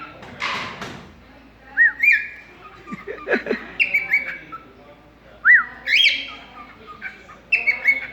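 Pet cockatiel whistling and chirping: a run of short, high, rising-and-falling whistled notes, repeated every second or so, with a brief rushing hiss near the start.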